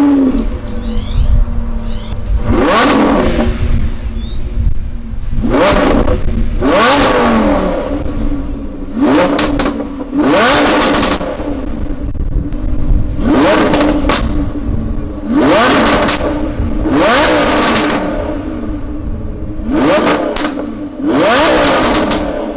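Lamborghini Huracan's 5.2-litre V10 revved repeatedly through a Ryft titanium exhaust, about ten sharp blips that rise in pitch and fall back to idle between them.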